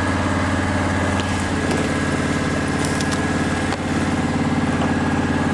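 Engine-driven welder's engine running steadily at idle, an even low drone with a fast regular beat, with a few faint light clicks over it.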